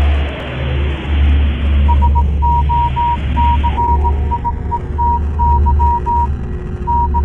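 Electronic sound design: a deep bass drone that swells and dips, with a falling pitch sweep in the first two seconds and a hiss that cuts off about four seconds in. From about two seconds in, a high beep keys on and off in short and long tones like Morse code or a radio signal.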